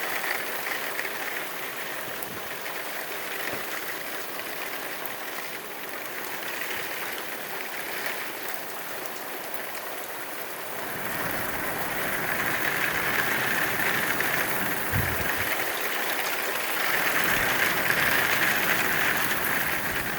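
Heavy rain pouring down steadily, growing louder about halfway through, with a short low thump about three quarters of the way in.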